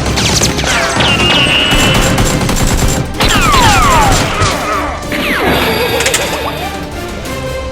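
Dubbed action soundtrack: music mixed with rapid gunfire and crashing impact sound effects, with several falling whistling sweeps. It thins out and grows quieter in the last couple of seconds.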